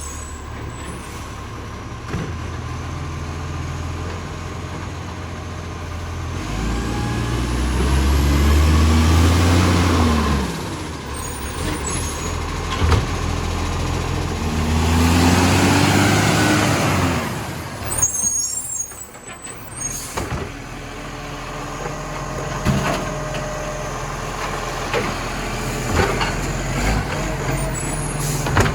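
Rubbish truck's diesel engine, which has an exhaust leak, idling and twice revving up and back down for a few seconds each time, with a few short sharp noises in between.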